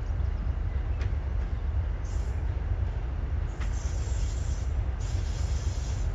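Diesel locomotive hauling passenger coaches as it approaches at low speed: a steady low rumble with a few faint clicks.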